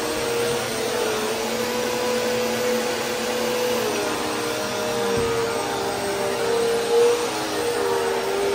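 Bagless upright vacuum cleaner running steadily on carpet, a constant motor hum that shifts slightly in pitch now and then, with a brief louder swell near the end.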